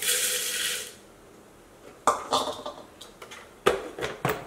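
Rolled oats poured from a bowl into a plastic food processor bowl, a brief rushing hiss lasting about a second. Then sharp clicks and knocks as the plastic lid is handled and fitted onto the processor.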